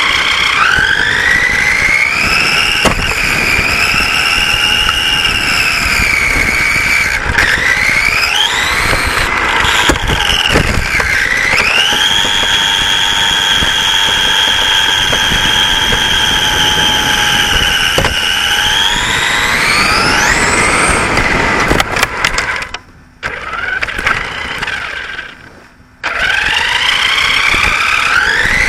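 Radio-controlled racing saloon car's motor whining as it drives, heard from a camera mounted on the car over road rumble. The pitch rises and falls with the throttle, holds steady for several seconds, then climbs steeply about two-thirds of the way through. The motor then cuts out and goes quiet twice before picking up again near the end.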